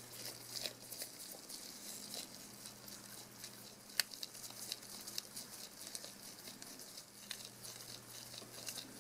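Faint small clicks and scratching from a precision screwdriver turning tiny screws out of a Canon PowerShot A4000's thin internal metal plate, with gloved hands handling the part. One sharper click comes about four seconds in.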